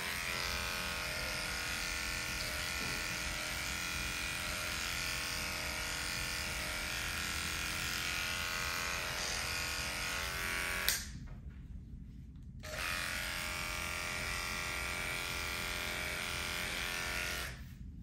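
Small cordless dog grooming clipper running with a steady electric buzz as it trims fur. It is switched off with a click about 11 seconds in, comes back on a second and a half later, and is switched off again near the end.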